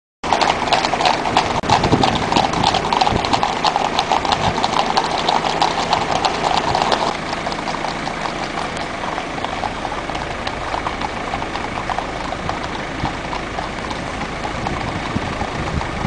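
Horses' hooves clip-clopping on a tarmac road, a dense clatter of many strikes for about the first seven seconds. After that the clatter thins and the steady running of a vehicle's engine and road noise takes over, with scattered hoof strikes still heard.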